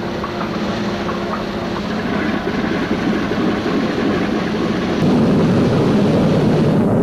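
Propeller aircraft piston engines running, a loud rumble that grows louder and steps up about five seconds in.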